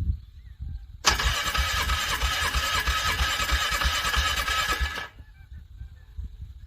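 Engine being cranked over on the starter and struggling to turn in the frigid cold, its slow compression beats repeating without the engine catching. A loud harsh grinding joins about a second in and cuts off about four seconds later.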